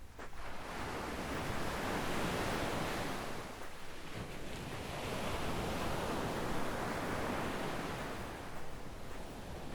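Small waves breaking and washing up a sandy beach: a steady rush of surf that swells twice, easing briefly about four seconds in.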